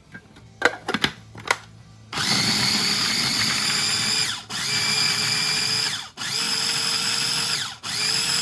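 Food processor blending guacamole from avocado, garlic, jalapeño and scallion, pulsed in runs of about two seconds with brief breaks between them: three runs, then a fourth starting near the end. Each run starts with a slight rise in pitch and then holds a steady whir. A few light clicks come before the motor starts, about two seconds in.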